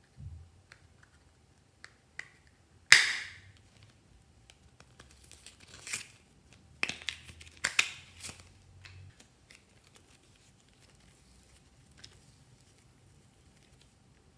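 Thin clear plastic mold crackling and crinkling as it is squeezed and the clay is pulled out of it. There is a loud crackle about three seconds in, then a cluster of sharper crackles between about six and eight seconds.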